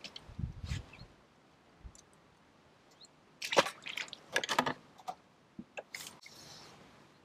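Handling noise at a wet landing net: a cluster of rustles, knocks and watery slaps about three and a half seconds in, then a few sharp ticks and a brief soft hiss near the end.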